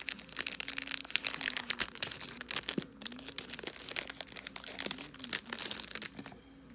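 Thin clear plastic bag crinkling and crackling as hands open it and pull out a small doll shirt; the crinkling is dense and uneven and stops shortly before the end.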